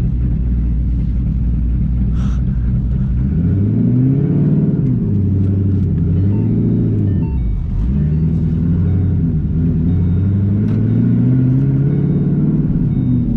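Cammed, straight-piped Shelby GT500's supercharged V8 heard from inside the cabin with the windows closed, running with a choppy rumble. For the first few seconds the engine pitch is steady. Then it rises as the car pulls through the gears, drops at a shift about eight seconds in, and climbs again.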